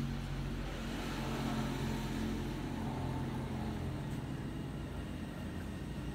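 A motor engine running with a steady low hum that eases off a little in the second half.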